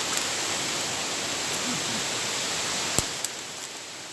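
Steady rush of a waterfall's falling water, easing slightly near the end, with a single sharp click about three seconds in.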